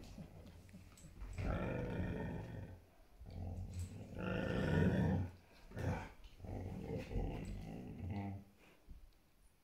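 Dogs play-fighting, growling in rough stretches of a second or two, one after another, dying away near the end.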